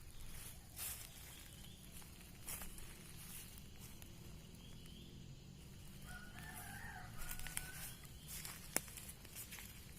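A rooster crowing faintly, one wavering call of about a second and a half past the middle, over a low steady outdoor background. A few brief knocks and rustles are scattered through it, and a sharp click near the end is the loudest sound.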